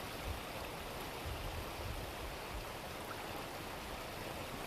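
Shallow river flowing over a stony bed: a steady rushing of water, with some low rumble underneath.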